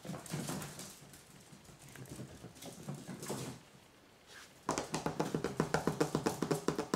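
Chihuahua puppies' claws pattering on a tile floor as they scamper about. There are faint scuffles early on, then a quick run of taps about two-thirds of the way in, loudest near the end.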